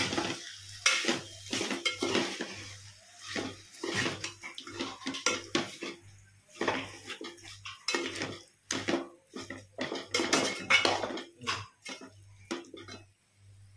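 Spoon clattering against a cooking pot and dishes: a long, irregular string of clinks and scrapes, as while stirring and serving a chicken curry.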